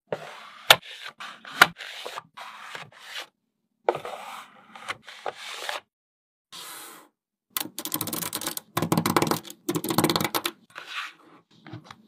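Small magnetic balls clicking and rubbing against each other and against card panels as ball-covered sections are handled and set in place. A few sharp snaps come near the start, and a dense clatter of rapid small clicks runs from about two-thirds of the way in, in short bursts with brief silences between them.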